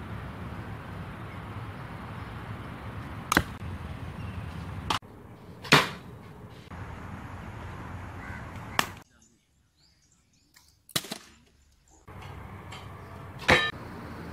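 Traditional recurve bow shots: about six sharp, separate cracks of the bowstring's release and the arrows striking, over a steady background hiss.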